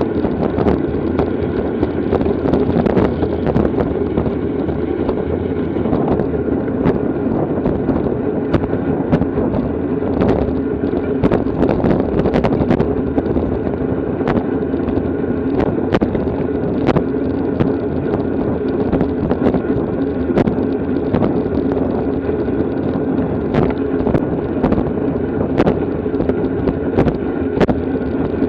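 Steady wind rush over a bicycle-mounted camera at racing speed, with scattered sharp ticks and knocks from the road and the bike.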